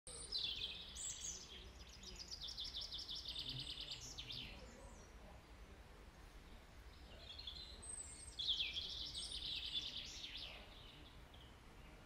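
A songbird singing: two long song phrases of fast, high trilled notes, each about four seconds, ending with quick falling notes, with a pause of a couple of seconds between them.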